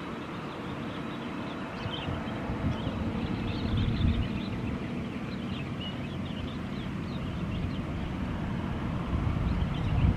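Steady low rumble of a Boeing 737-500's jet engines running at an airport, with many short high chirps scattered over it.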